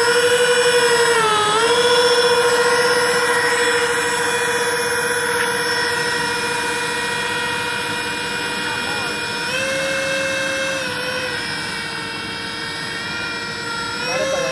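Electric ducted fans of a radio-controlled Airbus A330-600 model airliner whining steadily as it taxis. The pitch dips briefly about a second and a half in and rises for about a second near ten seconds in as the throttle changes.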